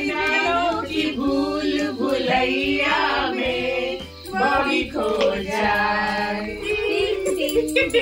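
A woman singing a song, with held notes that waver in pitch.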